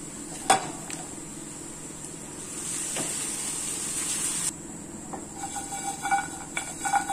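Whole spices dry-roasting in a pan: a steady hiss that gets louder for about two seconds in the middle, then drops off suddenly, with a sharp tap about half a second in.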